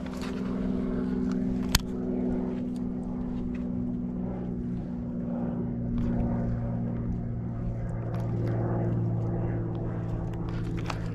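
A motor engine drones steadily, its pitch shifting a little partway through, with a single sharp click about two seconds in.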